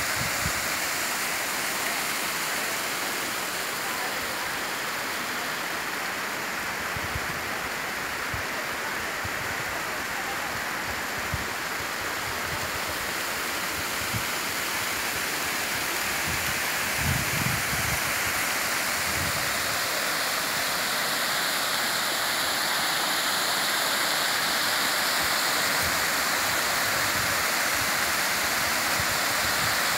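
Small waterfall: water spilling in many thin streams down a mossy rock face and splashing into a shallow pool, a steady rushing that grows a little louder near the end.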